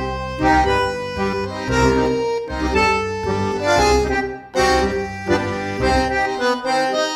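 Background music: held melody notes over a bass beat about once a second.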